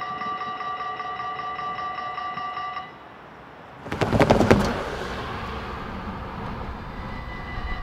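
Dutch level-crossing bell ringing steadily while the barriers rise, and stopping about three seconds in. About a second later there is a brief loud burst of clattering noise, followed by a steady low rush.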